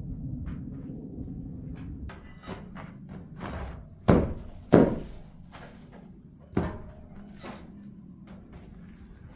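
Knocks and heavy thuds of floor demolition, with three loud impacts about four, five and six and a half seconds in and lighter knocks between them.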